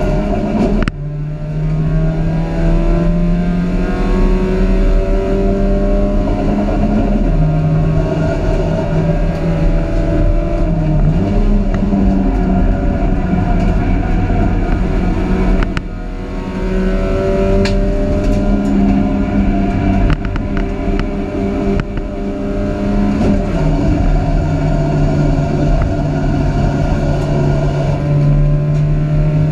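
Dacia Logan Cup race car's four-cylinder engine heard from inside the cabin at racing speed, its pitch climbing steadily through the gears. The engine note drops sharply twice, about a second in and again about halfway through, before pulling up again.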